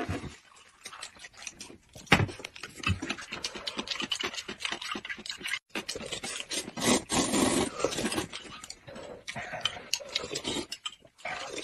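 Close-up eating sounds: slurping and sipping of thick corn soup from spoons, and slurping of noodles, with many short clicks and smacks throughout. A louder stretch of slurping comes about seven seconds in.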